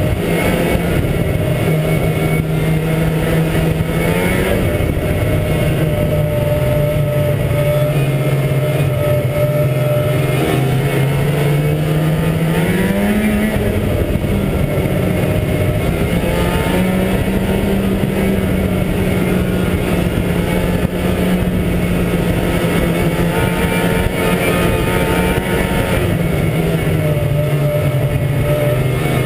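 Ski-Doo MXZ 380 two-stroke snowmobile engine running at trail speed. Its pitch sinks a few seconds in, climbs again about twelve seconds in, holds high, and eases off near the end as the throttle changes.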